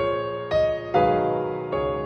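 Slow background music: a melody of held keyboard notes, with a new note coming in about every half second.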